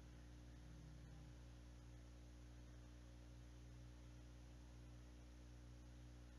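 Near silence: a steady low hum and faint hiss of room tone.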